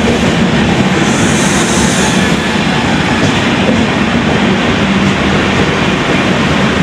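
Indian Railways express train running past, a loud, steady rumble and rattle of wheels on the track.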